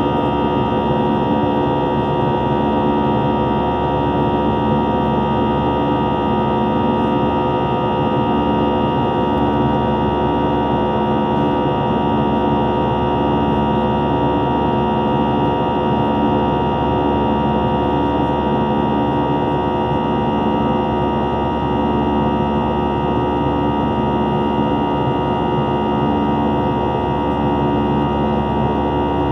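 Airbus A320 jet engines at climb power heard from inside the cabin: a loud, steady drone carrying several held tones, with a slow, regular pulsing in the low hum.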